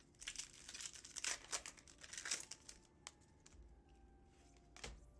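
Crinkling and tearing of a trading-card pack wrapper and cards being handled, busiest in the first three seconds, then quieter with a couple of sharp clicks.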